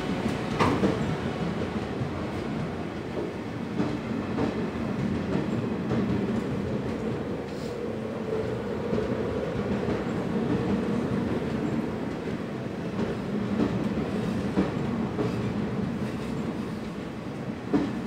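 Indian Railways passenger coaches rolling past on an arriving express train: a steady rumble of wheels on track, with now and then a single clack as a wheel crosses a rail joint.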